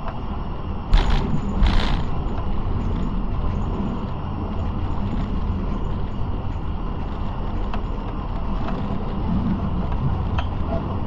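Tram running along the track with a steady low rumble, and two sharp clacks from the wheels on the rails about one and two seconds in.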